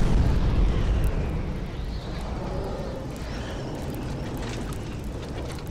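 Cinematic explosion sound effect of a logo intro: a deep rumbling boom, loudest at the start, that slowly fades into a lower rumble and dies away near the end.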